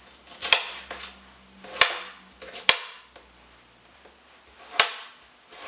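Kitchen knife cutting a red pepper into chunks, the blade knocking sharply on a hard cutting board four times at irregular intervals.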